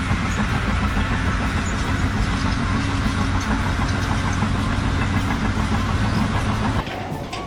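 An engine or heavy machine running steadily, cutting off abruptly near the end.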